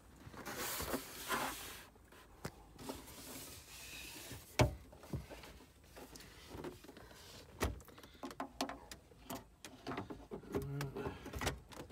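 Plastic lower dash trim panel being handled and fitted back into place under a car's dashboard: rustling and scraping, then a series of clicks and knocks. The loudest knock comes about four and a half seconds in, and there is a quick run of small clicks near the end.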